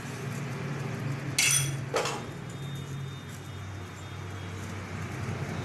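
Metal kitchenware clinking twice, about half a second apart, roughly a second and a half in, the first strike ringing briefly, over a steady low hum.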